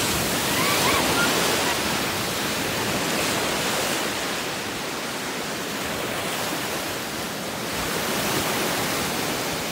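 Fast, muddy floodwater rushing and churning over flooded ground and around tree trunks, a steady wash of water noise that swells slightly about eight seconds in.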